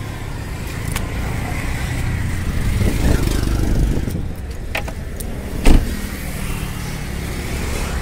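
Car door unlatched and then shut with one solid thump about six seconds in, over a steady low vehicle hum.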